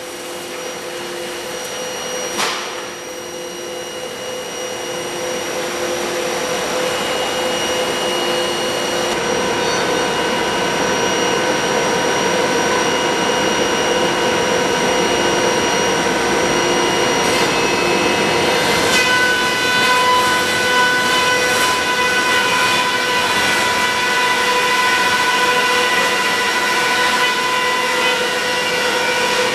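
Large high-speed four-sided planer (moulder) running, a steady machine din with several high whining tones from its spinning cutter heads. A single sharp knock sounds about two seconds in, the noise builds slowly, and the mix of tones shifts twice as the machine works.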